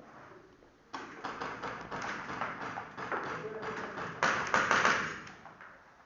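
Airsoft guns firing indoors: rapid, irregular strings of sharp cracks and BB impacts with room echo. The firing starts about a second in and flares up again about four seconds in.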